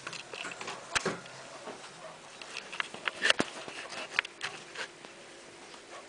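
Scattered light clicks and taps at irregular moments, the sharpest a little past three seconds in, over a quiet room background.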